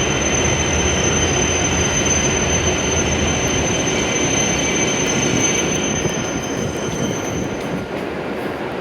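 E7 series Shinkansen train rolling slowly into the platform and braking to a stop: a steady rumbling run with a thin high whine that cuts out about three-quarters of the way through, the noise easing a little toward the end.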